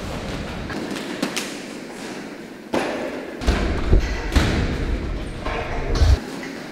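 Punches and kicks landing on a hanging heavy punching bag: a handful of dull thumps, irregularly spaced.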